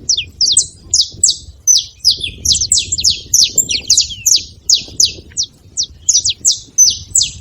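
Saffron finches calling: a rapid, unbroken string of short, sharp chirps that each fall in pitch, several a second, some overlapping.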